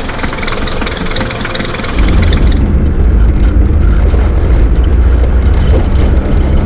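Hindustan Contessa Classic sedan's engine running. About two seconds in, the sound cuts to a louder, deeper, steady engine drone with heavy bass.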